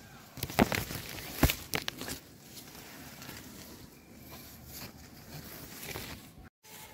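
Rustling and several sharp knocks from a handheld camera being moved among leafy tree branches, mostly in the first two seconds, then a steady outdoor hiss.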